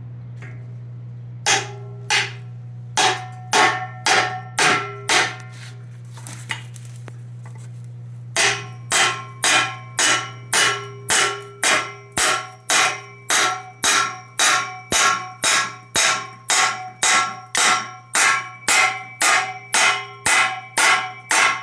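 Hammer blows driving a freezer-chilled ball joint into a steering knuckle, each strike ringing metallically. A handful of scattered blows come first, then a steady run of about two strikes a second from about eight seconds in.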